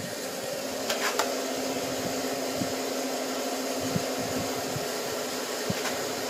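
Wood lathe motor whining as it is sped up, its pitch rising through about the first second and then holding steady, with the hiss of a polishing rag pressed against the spinning mahogany bowl. Two sharp clicks about a second in.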